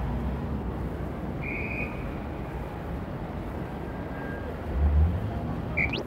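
City street traffic noise, a steady rumble, with a short high tone about a second and a half in, a low thump about five seconds in, and a brief rising squeak near the end.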